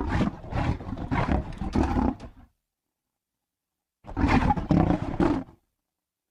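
White tigon (tiger–lion hybrid) roaring in two bouts: a run of four or five pulsed roars lasting about two and a half seconds, then, after a gap of dead silence, a shorter bout of about a second and a half.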